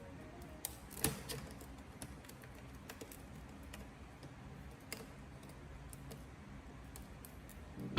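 Faint, scattered small clicks and light taps of tools and small parts being handled during a tablet repair, the sharpest about a second in.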